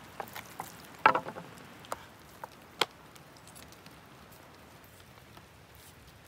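A few sharp clicks and knocks of a knife and raw meat being handled on a wooden platter, the loudest cluster about a second in, then only faint background.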